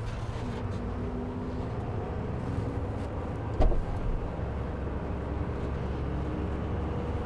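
Mercedes-Benz E200 sedan idling with a steady low hum. A single sharp click about three and a half seconds in as the rear door latch is opened.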